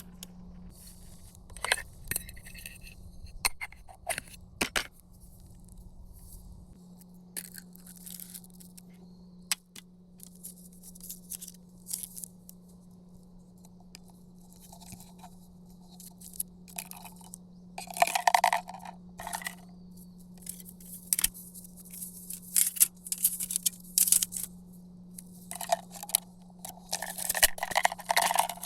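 Camp cooking preparation: a string of scrapes, clinks and crinkling or tearing sounds from cookware, utensils and food packaging being handled, busier in the second half, over a faint steady low hum.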